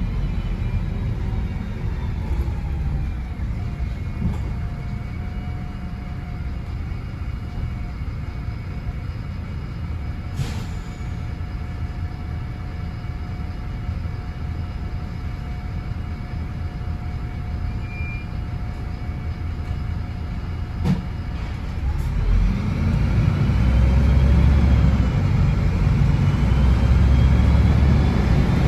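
MAN 18.240 single-decker bus engine ticking over at rest with a steady whine, a short sharp sound twice. About three quarters of the way through the engine revs up and the bus pulls away, louder, with rising whines as it accelerates.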